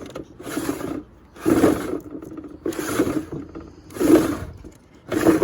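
Homemade cable reel being turned by hand to wind up Cat 5 cable: a rhythmic scraping about once a second with each turn.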